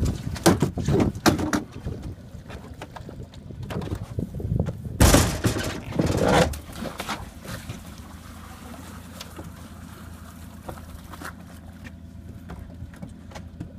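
Cement-weighted plastic 55-gallon drums knocking and thudding against an aluminum boat's hull as they are shifted, then a loud burst of heavy knocks and splashing around five to six seconds in as a drum goes over the side into the water. After that a steady low hum carries on.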